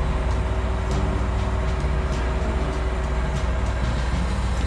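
Large diesel engine idling: a steady low rumble with a faint steady hum above it.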